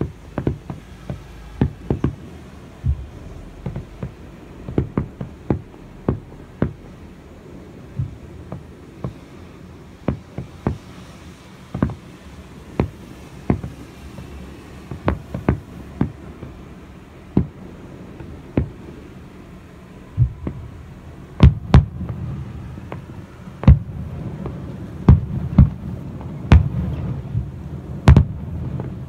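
Aerial firework shells bursting: an irregular series of sharp bangs with low booms, coming thicker and louder about two-thirds of the way through as the finale builds.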